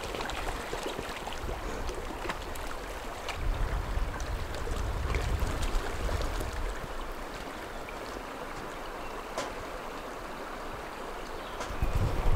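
Running water: a steady wash with faint ticks and small splashes, and a low rumble that swells for a couple of seconds near the middle.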